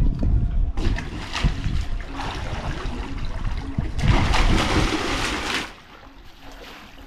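Swimming-pool water sloshing and splashing, with a low rumble in the first second; the splashing is loudest a little past halfway, then drops off sharply about a second and a half before the end.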